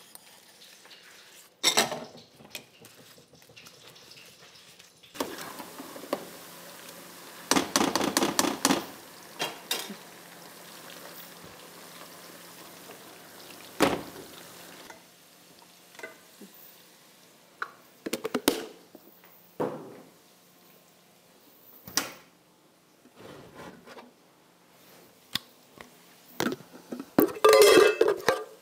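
Cooking pots, lids and utensils clinking and knocking on a gas stove, with a steady hiss for several seconds in the middle and a quick run of clicks about eight seconds in. Near the end comes the loudest clatter, a spoon scraping and knocking inside a metal tin.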